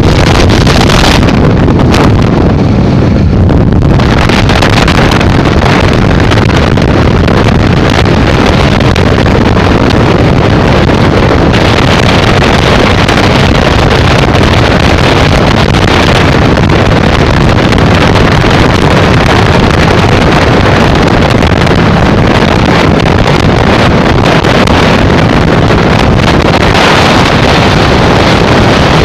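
Engine of a motorized hang glider trike running steadily in flight, mixed with heavy wind noise on the microphone; loud throughout.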